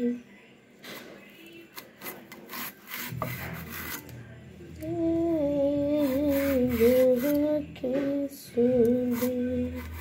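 Raw green banana peel scraping against an upright fixed cutting blade (boti) in short strokes. From about halfway in, a woman's voice hums a wordless tune of held, gently wavering notes over the scraping, the loudest sound here.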